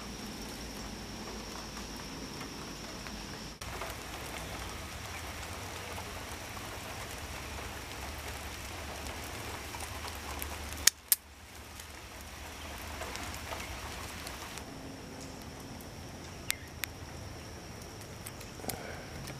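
Leaves and stems rustling as tomatoes and peppers are picked by hand, with a faint steady high tone behind. Just before eleven seconds in, two sharp snips of garden scissors cutting pepper stems, the loudest sounds, then a couple of lighter clicks later on.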